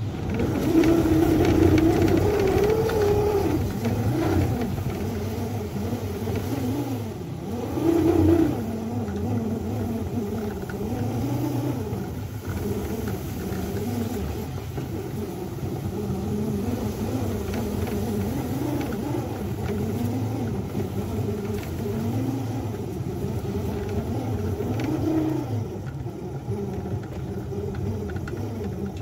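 Miniature 7½-inch gauge locomotive pushing a snowplow through heavy, wet snow: a steady mechanical running sound from the drive with its pitch wavering up and down as the load changes, louder for a moment about 8 seconds in.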